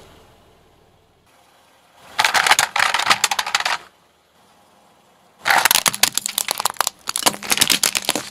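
Car tyre rolling over and crushing brittle objects. There are two spells of dense crackling and snapping, one about two seconds in and another from about five and a half seconds. The second is a plastic toy cracking apart under the tyre.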